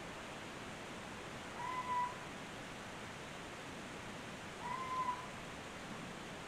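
A short, clear animal call, heard twice about three seconds apart over a steady hiss of recording noise.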